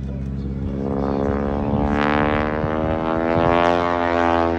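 Piston engine and propeller of a single-engine aerobatic plane, growing steadily louder as it dives.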